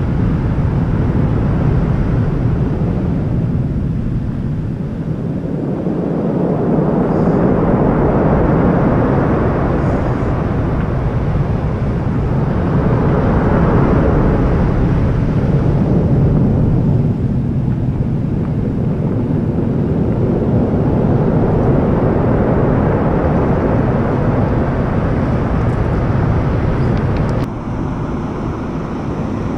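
Heavy sea surf breaking on a pebble beach: a loud rush that swells and fades as each wave comes in.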